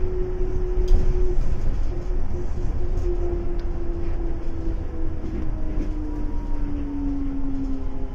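Yurikamome rubber-tyred guideway train running, heard from inside the front car: a steady low rumble under an electric motor whine that falls slowly in pitch as the train slows into a station.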